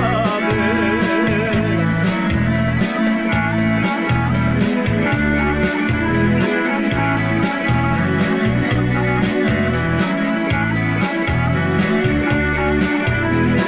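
Electronic arranger keyboard playing a melody over a steady beat and bass line.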